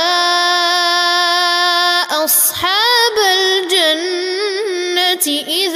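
A male Quran reciter chanting melodically: a long held note for about two seconds, then, after a short breath, an ornamented phrase that rises and falls in pitch.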